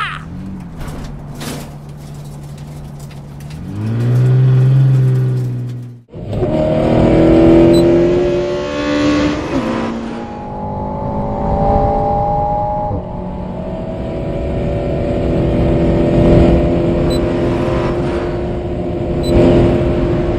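Race car engines running, first one steady note that revs up, then a sudden cut about six seconds in to several engines running together at a higher pitch.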